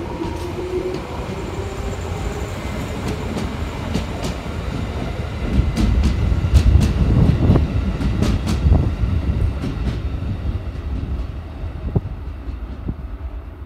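JR 211 series electric multiple unit moving off along the track, its wheels clicking, often in pairs, over rail joints as the cars pass, over a steady rumble. The sound is loudest about six to nine seconds in and fades as the last car draws away.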